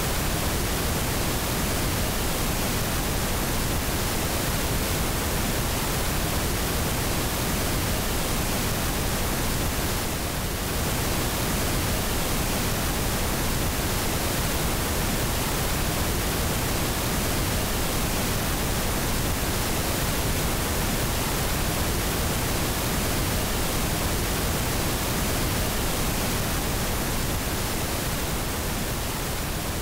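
FM radio static: a steady, even hiss from the 104.1 frequency after the station's signal has gone off the air. It dips briefly about ten seconds in and fades slightly near the end.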